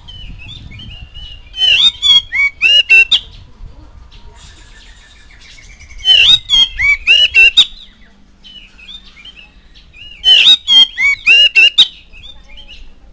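A male Oriental magpie-robin singing in three loud bursts, each about a second and a half of rapid, sweeping whistled notes, with softer notes between the bursts.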